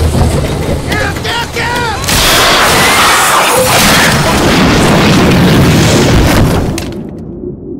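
Oil well blowing out on a wooden drilling derrick: a deep rumble with squealing sounds, then a loud roaring rush of the blowout for about five seconds. Near the end the roar cuts off abruptly to a muffled low drone, the film's rendering of the boy being deafened by the blast.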